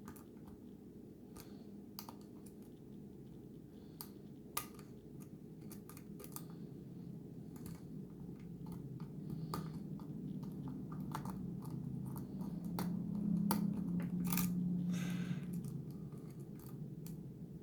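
Lock pick and tension wrench working the security pins of a Schlage lock cylinder during single-pin picking: scattered light clicks and scrapes, one sharper click about four and a half seconds in. A steady low hum runs underneath and swells toward the middle.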